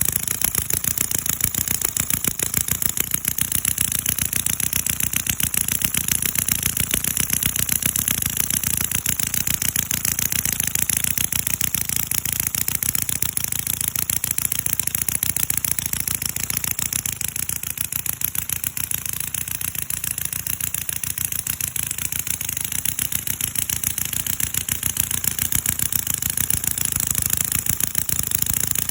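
CISON FG-VT157 miniature V-twin four-stroke model engine running steadily, a fast, even stream of firing pulses.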